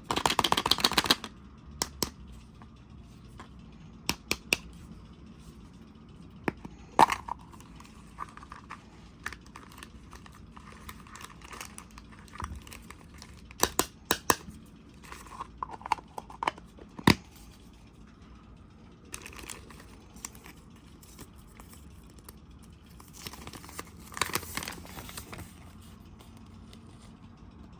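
Toy packaging being opened and handled: crinkling and tearing, with scattered sharp clicks and taps. There is a dense crinkling burst at the start and another about 24 seconds in.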